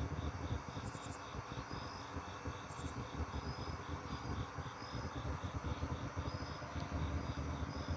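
Crickets chirping in a steady rhythm, a few chirps a second, with a higher call repeating about once a second, over a constant low rumble.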